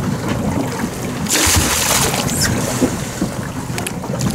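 Boat at sea: a steady low rumble with wind and water noise, and a brief rush of hiss about a second and a half in.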